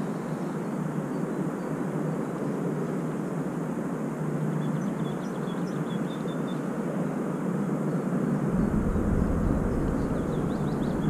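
Steady outdoor noise with a distant rumble. Wind buffets the microphone from about eight seconds in, adding a low rumble. A small bird chirps faintly now and then.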